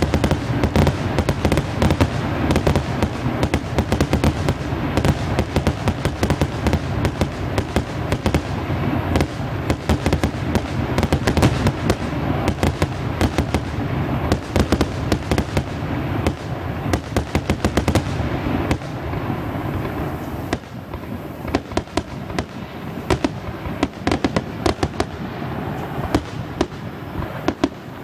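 Fireworks display: a dense, rapid run of bangs and crackles over a continuous low rumble, thinning to sparser separate bangs about two-thirds of the way through.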